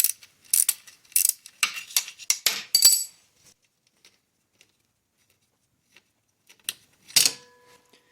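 Metal clinking of tools and hardware as a bolt-on kickstand is taken off a motorized bicycle frame: a quick run of sharp clinks and clicks for about three seconds, a pause, then a single clink with a short metallic ring near the end.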